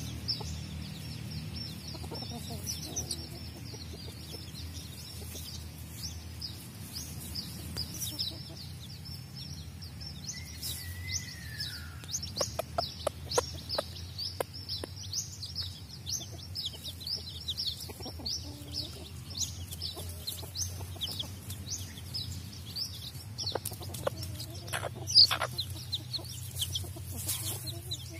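Domestic chicks peeping almost constantly in short, high, falling notes, with the mother hen clucking low now and then as she forages among them.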